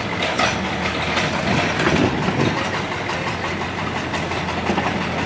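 Excavator's diesel engine running steadily, with a few sharp clanks scattered through.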